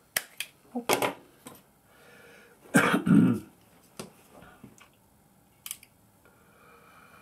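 Sharp clicks and snaps of hand tools working thin wire: an automatic wire stripper snapping on the wire, then crimping pliers clicking shut. Several quick clicks come in the first second and a half, with single clicks later. About three seconds in there is a louder, longer burst of noise.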